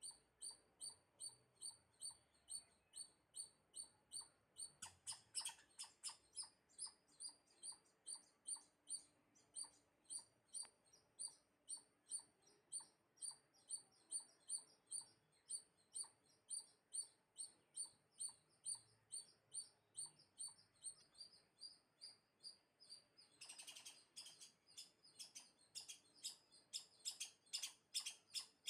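Faint, high-pitched chirping calls repeated steadily, about two to three a second, with a denser burst of louder chirps about five seconds in and again near the end.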